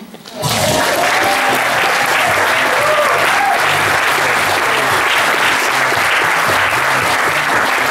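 Theater audience applauding, breaking out about half a second in and holding steady, with a few whoops.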